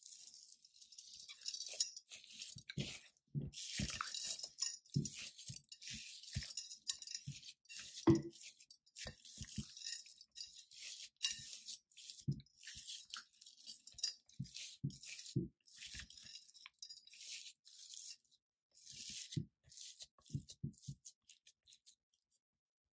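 Dry scraping and rustling with soft, irregular knocks, from ingredients being handled and mixed in a bowl.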